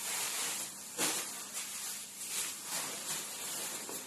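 Repeated rustling and crinkling of plastic grocery bags and packaging as vegetables are handled and put away.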